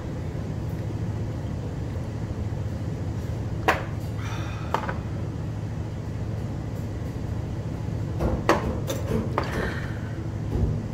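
Steady low room hum with a few sharp clicks of glass and tableware being handled. A short breathy exhale follows a shot of soju near the end.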